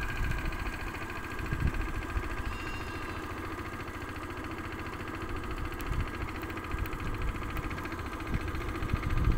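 A small vehicle engine idling steadily, with a few low thumps scattered through.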